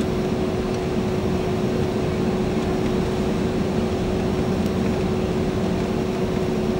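Airbus A330-200 with Rolls-Royce Trent 700 engines heard from inside the cabin on descent: a steady roar of engine and airflow noise with a constant hum running through it.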